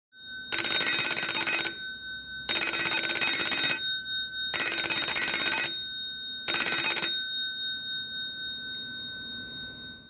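Twin-bell ringer of a 1940s Stromberg Carlson rotary telephone ringing four times, about a second each, one every two seconds: a clapper striking rapidly between two bells. The bells ring on and fade away after the fourth ring.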